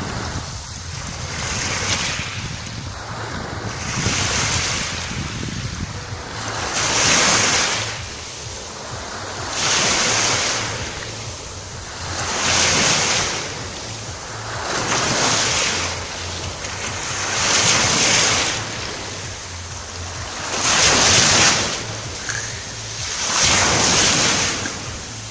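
Sea waves washing onto the shore, one surge about every two to three seconds, with wind rumbling on the microphone.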